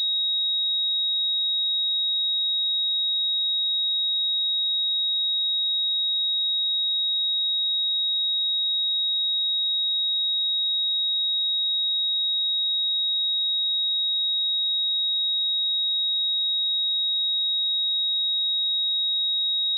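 A pure 3788 Hz sine-wave test tone, a single steady high-pitched note held at constant level.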